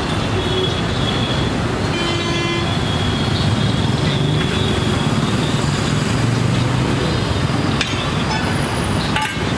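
Roadside traffic noise, with a vehicle horn tooting briefly about two seconds in.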